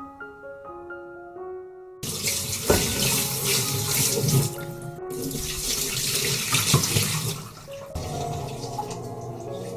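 Water running and splashing, starting suddenly about two seconds in and easing somewhat near the end, with piano background music throughout.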